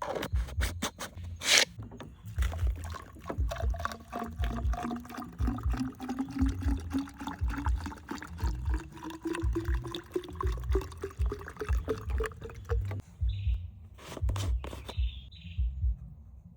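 Water pouring into a container, its pitch rising steadily as the container fills, stopping about thirteen seconds in. A low throbbing beat runs underneath, and a few short chirps come near the end.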